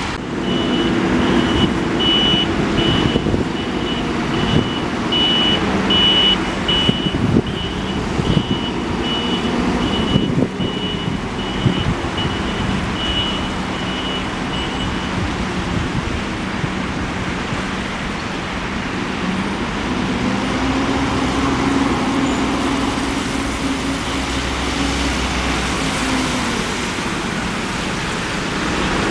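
City street traffic with vehicle engines running. A high electronic beep repeats about twice a second through the first half, then stops.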